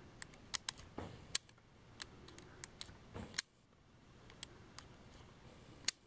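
Scattered faint clicks and small knocks at irregular intervals from a handheld camera being handled and adjusted.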